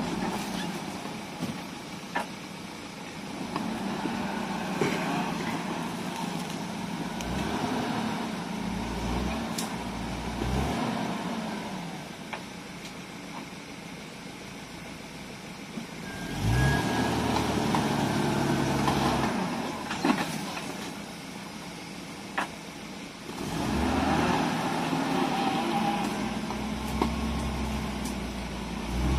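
Off-road vehicle engine running under load, revving up into two louder surges partway through and near the end as it works through deep mud, with a few sharp knocks.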